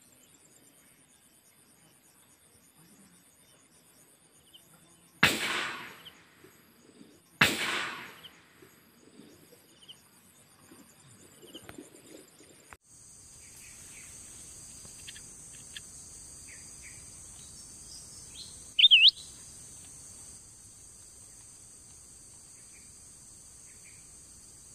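Two gunshots about two seconds apart, each trailing off in an echo over about a second, fired at wild boar. After a cut, a steady high drone of cicadas and crickets, with one loud, short wavering bird chirp.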